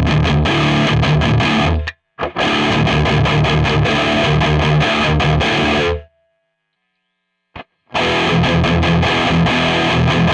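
Distorted electric guitar played through a Digitech RP1000 multi-effects unit: a high-gain riff of low, rhythmic chugging notes. It stops briefly about two seconds in, and again for about two seconds past the middle, with a small click in the pause, then starts again.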